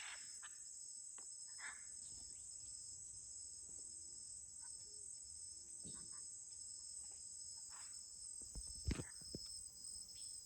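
Faint, steady chorus of insects, a continuous high-pitched drone, with a few scattered soft knocks and a louder thump about nine seconds in.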